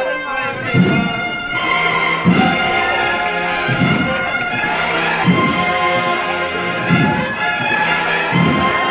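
Brass band playing a slow processional march: held brass chords over a low drum beat about every one and a half seconds.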